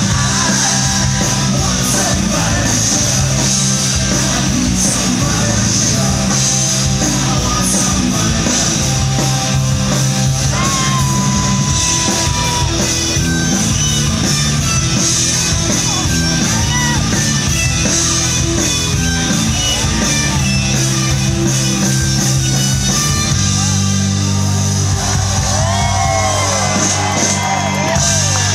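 Rock band playing live and loud through a large PA, heard from within the audience: electric guitars, bass and drums under a lead vocal.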